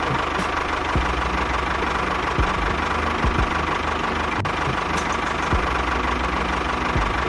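Tractor engine running steadily with an even, rapid beat, with a few short low thumps scattered through.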